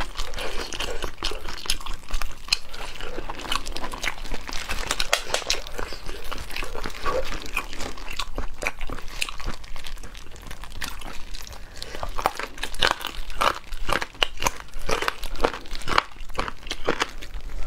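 Close, wet eating sounds of braised pork hock being torn apart by hand and chewed: a dense run of sticky clicks and smacks, with disposable plastic gloves crinkling as the meat is pulled.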